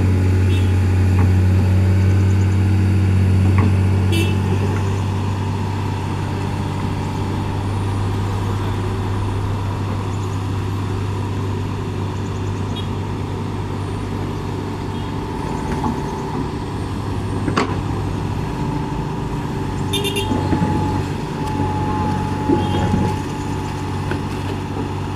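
Heavy vehicle engine running steadily with a low hum, louder for the first few seconds and then easing, with a few brief clicks and knocks.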